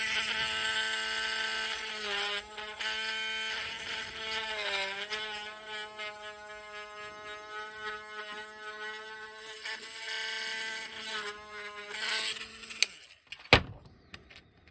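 Small electric hobby drill with a 1.0 mm bit running steadily, its pitch dipping briefly twice as the bit bites into the figure's plastic, then stopping just before the end. A single sharp click follows.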